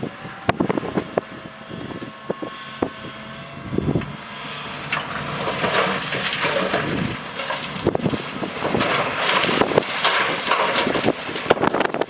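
Heavy earthmoving machinery at work: scattered clanks and knocks, then a louder rushing, rattling noise from about four seconds in.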